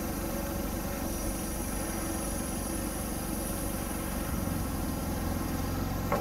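Portable air compressor running steadily, charging the locomotive's brake pipe with air.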